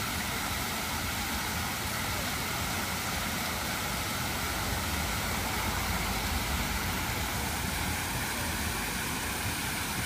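Tiered cascade fountain: water spilling steadily over its stepped ledges into the basin, a constant rushing splash.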